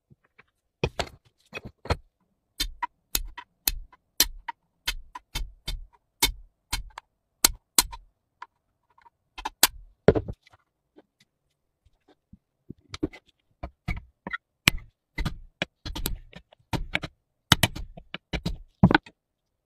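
Sharp metal knocks and taps from hand work on an old flashlight's steel parts, about two a second, with a short pause in the middle. Near the end the taps go with a pin punch driving the housing's hinge pin.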